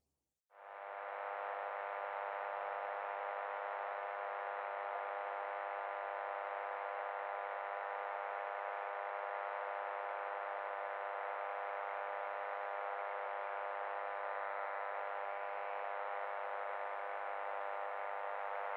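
A steady, fairly quiet electronic buzz that starts under a second in and then holds without change.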